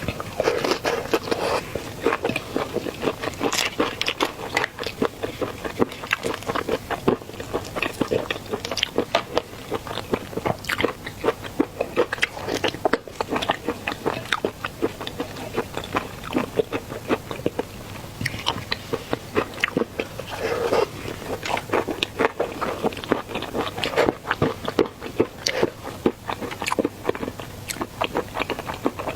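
A person eating seafood close to the microphone, biting and chewing with a constant run of sharp wet clicks and crunches.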